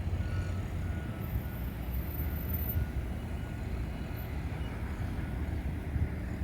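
Steady low rumble of heavy vehicle engines and street traffic, with a backup alarm beeping a few times in the first second.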